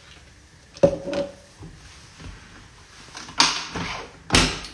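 Knocks and a scrape of a stainless steel stand-mixer bowl being set onto its base and the mixer head lowered into place: a sharp clink about a second in, a rushing scrape near the end, and a heavier thump, the loudest of the three, just after it.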